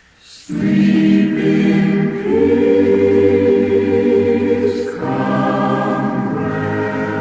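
A choir singing slow, held chords that change every two or three seconds, coming in after a brief pause about half a second in.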